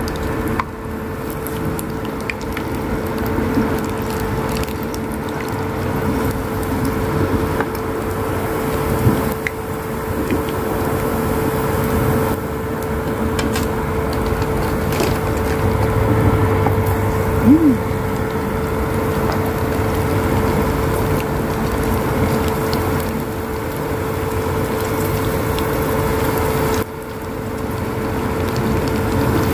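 Hot oil bubbling and crackling in a small frying pan as rengginang rice crackers fry, over the steady hum of the induction cooktop.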